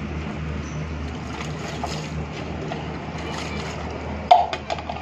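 Water sloshing and splashing in a plastic bucket as a rooster is washed by hand, with a sudden loud splash a little over four seconds in followed by a few quick drips and splashes. A steady low hum runs underneath.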